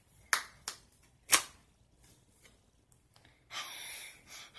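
Handling noise of playing cards and hands close to the microphone: three sharp clicks in the first second and a half, the loudest about 1.4 s in, then about a second of rustling near the end.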